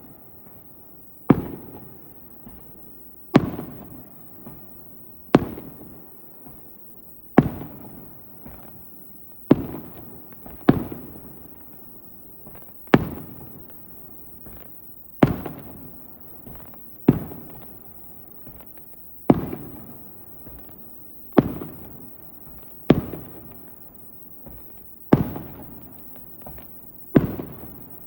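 Aerial firework shells bursting: about fourteen loud bangs, roughly one every two seconds, each dying away over a second or so.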